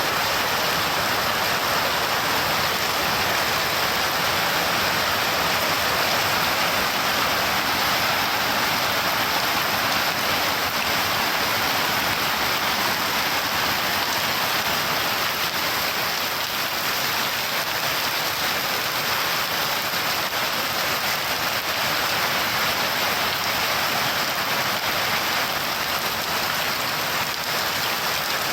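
Steady rain falling as an even, unbroken hiss, with no thunderclaps.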